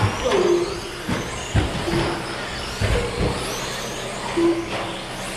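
Electric 1/10-scale short course trucks with 13.5-turn brushless motors racing on carpet: motors whining and rising in pitch as they accelerate, with several sharp thuds from trucks landing jumps and knocking into things.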